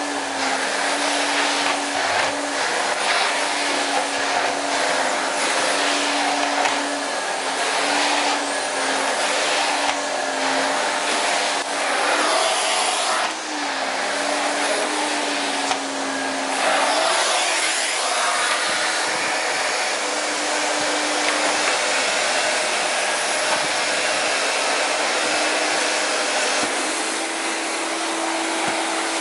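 A 1988–89 Miele Silverstar S280i 1200 W canister vacuum cleaner running while its floor nozzle is pushed back and forth over a woven rug. There is a steady motor whine over a rushing airflow hiss. The pitch wavers slightly with the strokes and sits a little higher near the end.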